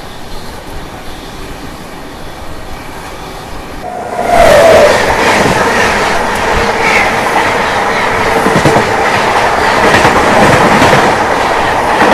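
Passenger train running, heard from its open doorway; about four seconds in, a passenger train on the adjacent track passes close by, with a sudden loud rush and rapid wheel clatter over the rails that carries on to the end.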